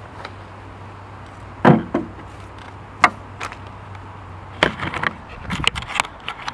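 Knocks and bumps of a camera being handled against a wooden bench, the loudest a single knock about two seconds in, then a flurry of taps and rustles near the end as the camera is moved. A steady low hum runs underneath and fades out about two-thirds of the way through.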